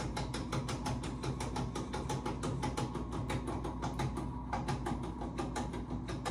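Hospital bed being lowered: its mechanism runs with a steady hum and rapid, even ticking, about seven ticks a second.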